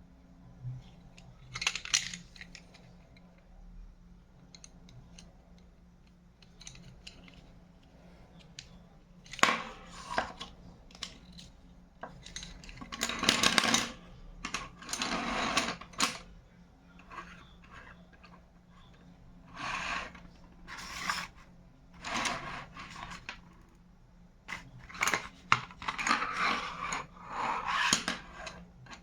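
Charcoal pencils and their packaging being handled: irregular clicks and taps of hard objects, with longer stretches of rustling and scraping around the middle and again near the end.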